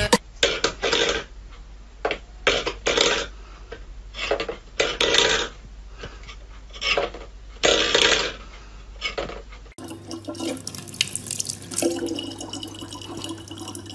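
A string of about a dozen short noisy bursts. About ten seconds in, the sound changes to a faucet running a thin stream into a plastic water bottle, with a steady low hum.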